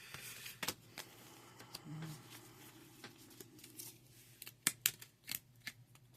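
Paper game cards being handled and pulled apart, some stuck with old tape and rubber band. Light rustling and scattered sharp clicks and snaps, with the loudest few snaps coming close together in the second half.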